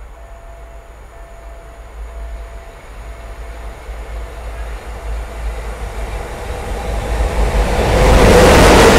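3E/1 electric locomotive hauling a freight train, approaching and passing at speed: a rumble that grows steadily louder until the locomotive rushes past about eight seconds in. A faint, evenly repeating beep sounds during the first few seconds.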